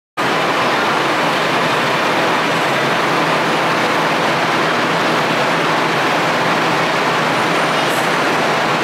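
Steady, even noise of a Tokyu Setagaya Line tram standing at the platform with its onboard equipment running.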